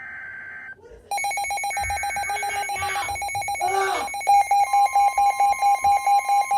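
The harsh digital screech of an Emergency Alert System data burst cuts off, and about a second in a loud electronic emergency alert tone starts up. The two-tone alarm pulses rapidly and grows louder and choppier, and a second, slightly higher tone joins partway through. It signals a flash flood warning.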